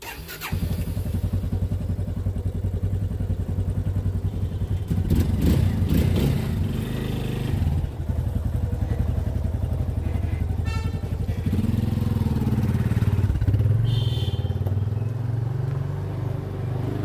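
Yamaha FZ25's single-cylinder motorcycle engine starting about half a second in and running, revving up around five seconds in as the bike pulls away past and rides off.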